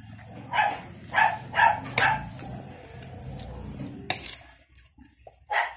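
A dog barking: a quick run of four short barks in the first two seconds, then one more near the end, over a steady low hum.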